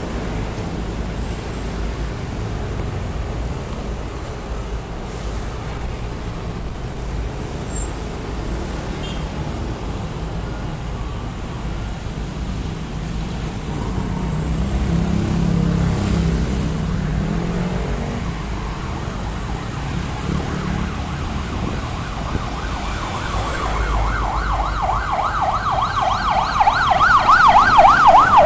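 Steady city traffic noise with a vehicle passing about halfway through, then an emergency-vehicle siren in a fast up-and-down yelp that comes in during the last several seconds and grows louder as it approaches.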